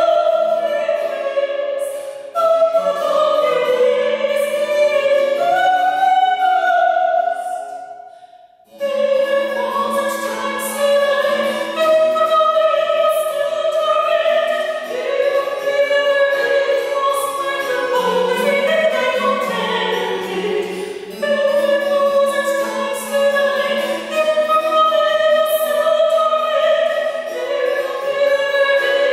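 A soprano singing with spinet accompaniment, the voice carrying the melody over plucked keyboard notes, with a short break between phrases about eight seconds in.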